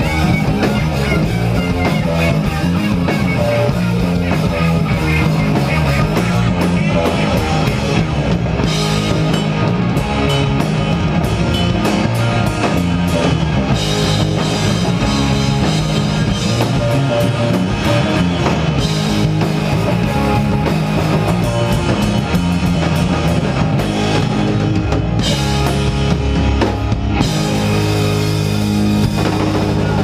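Live rock band playing loudly: electric guitars and bass over a drum kit in an instrumental stretch with no singing.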